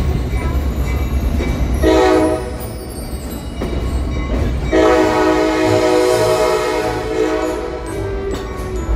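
Locomotive horn sounding a short blast about two seconds in, then a long blast of about four seconds, several notes held together, over the low rumble of the moving train. It is the horn signal called for by a whistle post at the trackside.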